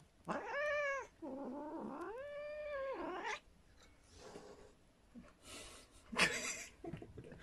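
Domestic cat meowing twice in drawn-out calls, the second longer, starting low and then arching up. A brief noisy rustle or clatter follows about six seconds in.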